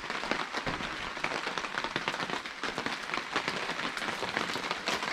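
Steady rain pattering down, dense with many separate drop hits.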